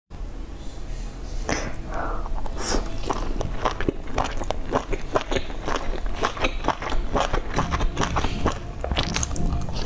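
Mouth sounds of eating steamed dumplings dipped in chili-oil sauce: biting and chewing, with a quick run of short clicks, several a second.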